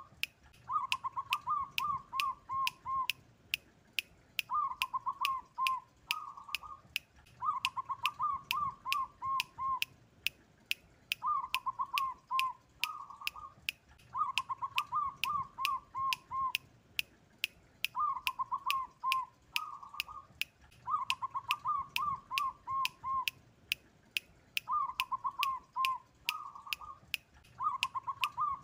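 Zebra dove (perkutut) singing its song: a rapid run of short, bubbling coo notes, repeated about every three and a half seconds, nine phrases in all. Under it runs a steady, fast ticking, about three clicks a second.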